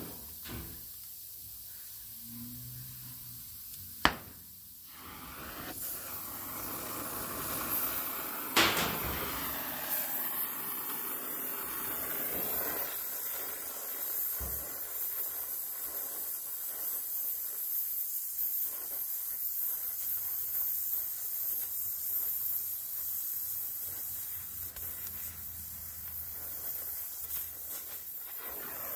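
Oxy-acetylene welding torch: a sharp click about four seconds in, then the gas starts hissing and the torch lights with a pop, after which the flame hisses steadily as it heats and welds sheet metal.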